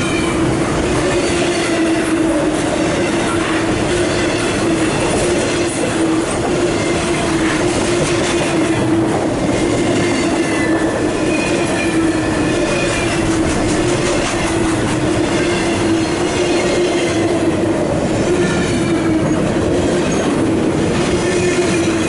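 CSX freight train rolling past: continuous wheel-on-rail noise with a steady tone underneath and faint high wheel squeal coming and going.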